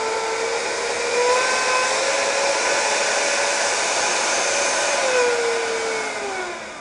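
Four Dr Mad Thrust 70 mm 11-blade electric ducted fans on an RC Convair 880 airliner model running at power with a high whine of several tones. The pitch rises about a second in, holds, then falls from about five seconds in as the fans spool down.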